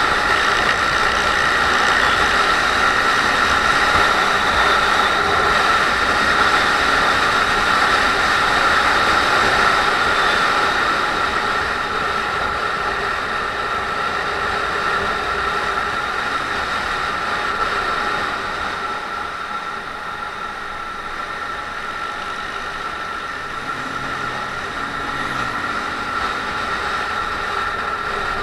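A Honda MSX125's single-cylinder 125 cc engine and wind noise, heard from a camera mounted on the moving motorcycle, as it is ridden at a steady cruise. The sound gets a little quieter about eleven seconds in and again near twenty seconds.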